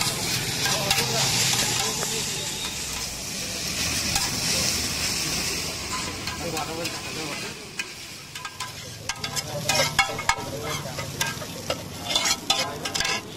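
Chowmein noodles sizzling on a large flat griddle as they are stir-fried with two metal spatulas. A steady sizzle fills the first half, then sharp clacks and scrapes of the spatulas on the griddle come in quick clusters.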